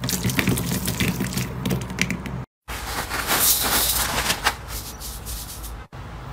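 Crunchy clear slime squeezed in a hand, crackling with many small clicks. After a brief cut, star-shaped sequins are poured from a plastic bag into a glass bowl of clear slime with a hissing rustle that fades off.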